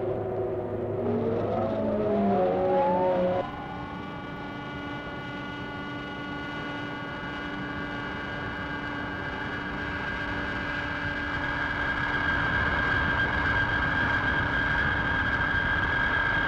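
Film sound effect of the Mole, a screw-nosed drilling vehicle, boring into the ground: a whine that rises in pitch as the drill spins up, then, after an abrupt change about three seconds in, a steady whirring drone with several held tones that grows louder toward the end.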